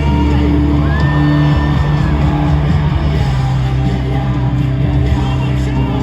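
Live rock band playing loudly, with a held high note about a second in and voices shouting and whooping over the music.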